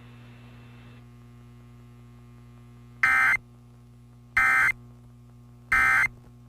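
Emergency Alert System end-of-message (EOM) code: three identical short bursts of shrill digital data tones, each about a third of a second long and about 1.4 s apart, starting about three seconds in. They mark the end of the alert. A steady low electrical hum runs underneath.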